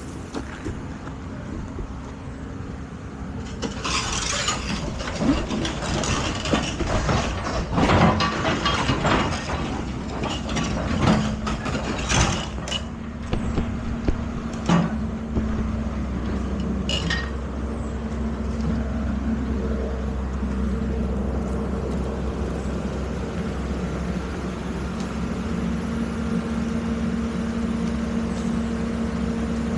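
Excavator engine running steadily. From a few seconds in until about halfway there is a run of sharp clanks and knocks, which then gives way to the engine's even hum.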